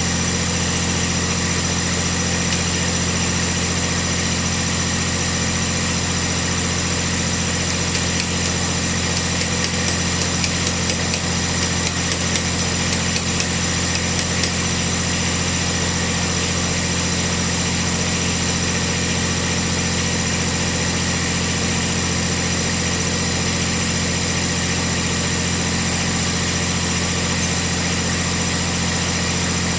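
Cub Cadet 1772 garden tractor engine running steadily, with a few faint clicks about ten seconds in.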